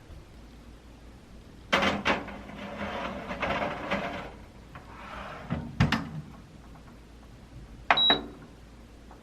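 Kitchen handling noises: a couple of seconds of rustling and clatter, a single knock, then a click with a very short high beep near the end, like an appliance button being pressed.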